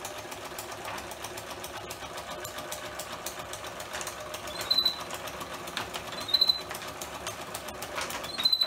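Domestic electric sewing machine running steadily, stitching sailcloth panels of a sail kit, its needle going in a fast, even patter. Three short high chirps cut in partway through and near the end.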